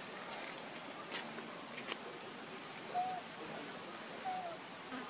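Two short, faint squeaky animal calls, about three and four seconds in, with a few light clicks over a steady outdoor hiss.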